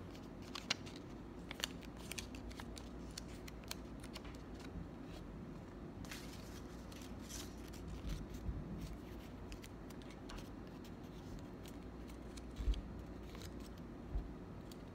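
Small paper cut-outs being folded and creased by hand: scattered paper crinkles and crackles, with a couple of dull bumps near the end.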